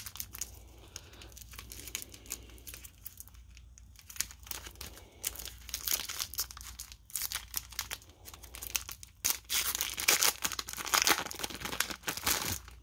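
Crinkling and tearing of a trading-card pack wrapper as it is opened and handled. The crackling grows denser and louder in the last few seconds.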